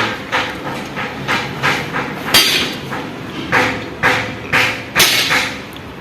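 Hammer blows on steel, about two or three a second, each with a short metallic ring, during work on an excavator's track chain.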